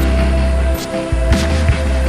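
Background music with a heavy, steady bass line and sharp drum hits.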